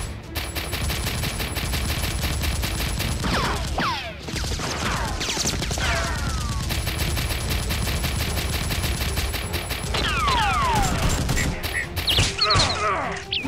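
Movie-style automatic gunfire sound effects in rapid, continuous bursts. Twice they give way to clusters of whistling ricochet whines falling in pitch.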